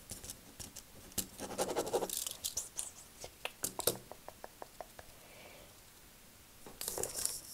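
Close-up ASMR trigger sounds: scratching and rustling right at the microphone, then a fast run of about eight light taps, followed by a quiet stretch.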